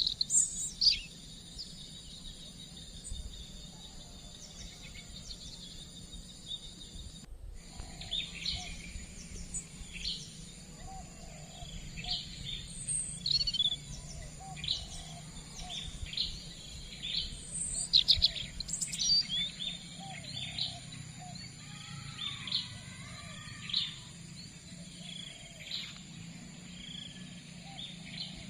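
Wild birds chirping, short calls repeated at irregular intervals, over a steady high-pitched buzz.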